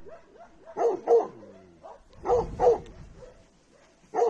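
Dog barking: two quick barks about a second in, two more about two and a half seconds in, and one near the end, with faint whining between.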